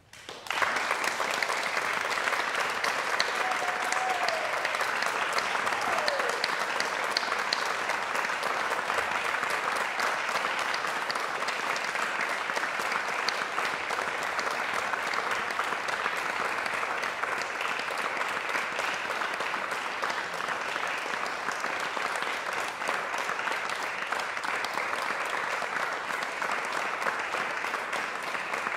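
Audience applause breaking out suddenly about half a second in as the song ends, then holding steady. A brief falling call from someone in the audience rises above it a few seconds in.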